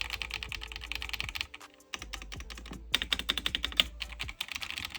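Fast typing on an Akko 5075B Plus mechanical keyboard with its stock switches and keycaps: a quick run of keystroke clacks, with a brief pause about a second and a half in.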